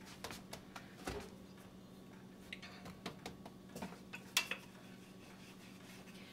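Scattered light knocks and taps of hands and a wooden rolling pin on a floured wooden board as pie-crust dough is flattened and rolled out, with a sharper pair of knocks about four seconds in. A faint steady hum runs underneath.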